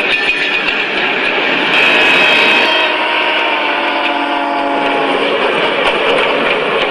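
Model train running past close up on metal track, its wheels rattling along the rails, a little louder from about two seconds in.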